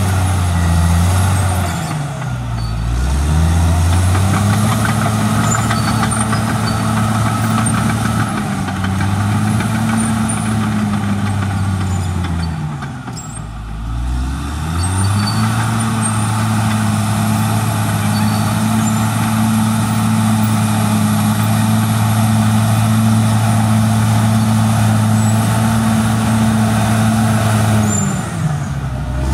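Cat D6R XL crawler dozer's diesel engine running hard as it pushes and spreads soil. The engine note sinks and climbs back three times: about two seconds in, around thirteen seconds, and near the end.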